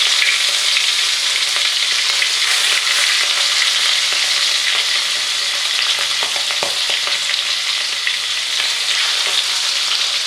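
King prawns frying in hot oil in a kadai: a steady, loud sizzling hiss, with a few light clicks around six to seven seconds in.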